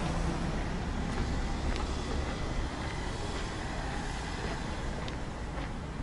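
Road traffic noise: a steady rumble of cars that eases a little over the few seconds, with a few faint footsteps on paving stones near the end.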